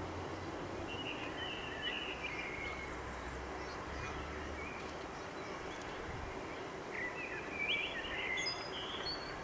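Class 810 diesel railcar standing at a station platform with its engine idling, a low steady hum that drops away about halfway through, over general outdoor noise. Short high chirps come twice, the louder set near the end.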